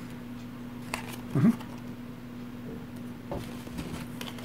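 Light handling of game cards, faint taps and clicks as they are moved about, over a steady low electrical hum. One short, louder low sound comes about a second and a half in.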